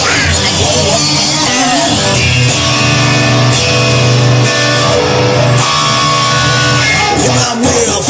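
Rock music led by electric guitar. From about two and a half to seven seconds in, a sustained chord rings steadily.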